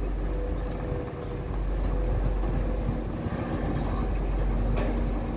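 Diesel dump truck engine running steadily at low revs as the truck moves slowly into position, a deep steady rumble with a faint hum over it. A brief sharp click near the end.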